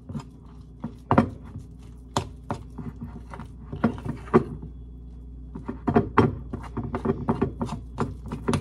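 Irregular clicks and knocks of a kitchen utensil against a dish as biscuit-mix dough is mixed by hand, thicker in the second half.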